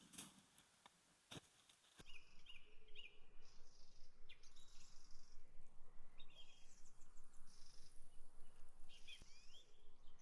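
Several birds chirping and trilling in short repeated phrases over a steady outdoor background, starting abruptly about two seconds in. Before that, a few faint clicks.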